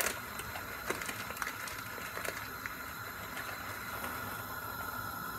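Small dry pasta poured from its plastic bag into a pot of boiling water, with a few light ticks in the first few seconds over a steady hiss from the boiling pot and gas burner.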